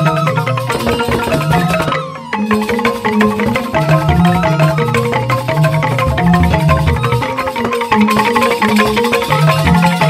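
Balinese joged bumbung gamelan: bamboo xylophones (grantang) struck with mallets in fast, interlocking runs over a low bass line. The music breaks off briefly about two seconds in, then carries on.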